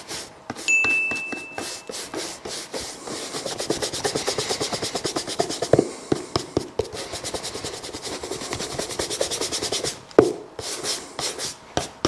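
Stiff bristle shoe brush scrubbing back and forth over greased leather house shoes, a fast run of strokes at several a second, working the leather grease into the upper and sole.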